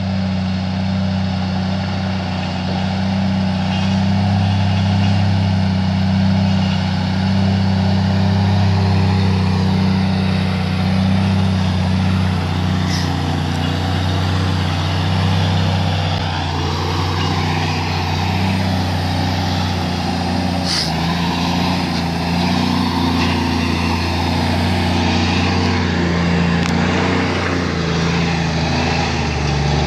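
Diesel engine of a loaded logging truck running steadily as it pulls along a muddy dirt track. Its pitch shifts about halfway through and steps up and down after that. Two short sharp ticks come through, about a third and two-thirds of the way in.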